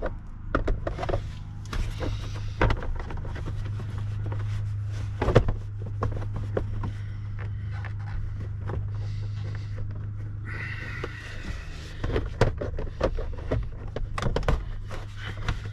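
Clicks and knocks of plastic interior trim and speaker parts being handled and pressed into place by hand, over a steady low hum. A short higher-pitched squeak comes about two-thirds of the way through.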